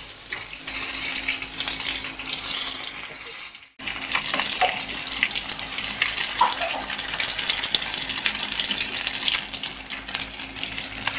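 Fish steak sizzling in hot oil in a shallow pan, a steady hiss full of small spattering crackles. The sizzle cuts out abruptly for a moment about four seconds in, then resumes.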